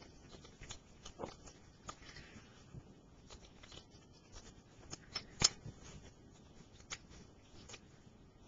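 A dog eating popcorn with its nose in the bag: scattered faint crunches and crinkly rustles, with a few sharper clicks, the loudest about five and a half seconds in.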